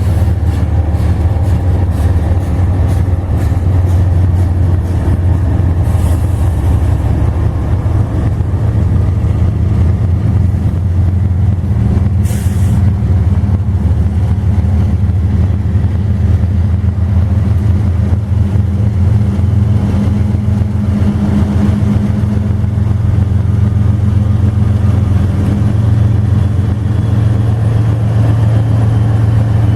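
Diesel-electric freight locomotive running with a steady heavy drone, with a short hiss of released air about twelve seconds in and a fainter one about six seconds in.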